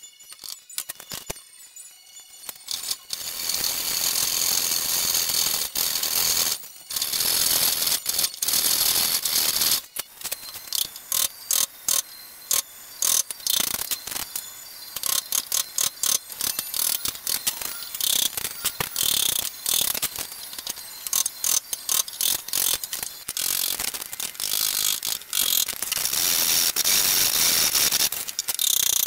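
Hand saw cutting into a wooden beam in steady back-and-forth strokes, with a few short pauses. The first couple of seconds are quieter, with only a few small clicks.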